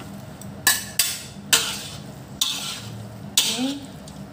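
Two metal spatulas scraping and tossing fried rice vermicelli around a metal wok. There are about five strokes, each a sudden scrape that fades into a short hiss.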